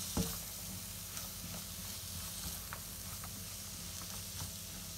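Chopped vegetables sizzling in oil in a hot frying pan while being stirred with a silicone spatula, with light scrapes and taps of the spatula against the pan. One sharper tap comes just after the start.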